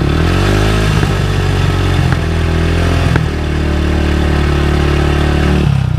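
Yamaha YZF sport bike with an aftermarket Devil exhaust, its baffle out, revved up from idle over about a second. The engine is held steady at about 4,600 rpm for a stationary sound-level test, then drops back to idle near the end.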